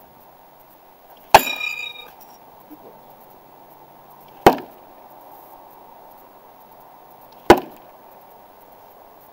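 Thrown knives striking a wooden target board three times. The first hit, about a second in, gives a metallic clang that rings for about half a second. The next two, about three seconds apart, are short sharp thunks as the blades stick in the wood.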